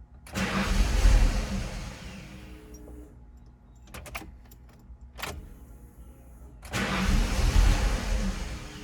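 A 1995 Ford Mustang GT's 5.0-litre V8 being cranked twice, each attempt about two seconds long and fading out without the engine staying running. It is a no-start that the owner puts down to a lean-running fuel fault, possibly a bad fuel pump. There are a few short clicks between the attempts.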